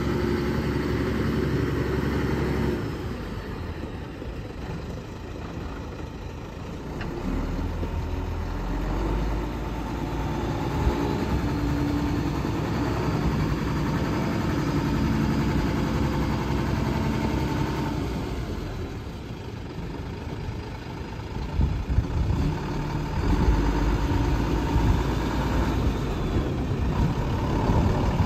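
Mack RD690S dump truck's EM7-300 diesel engine running as the truck drives slowly, the engine note falling and rising. It gets louder near the end as the truck comes closer.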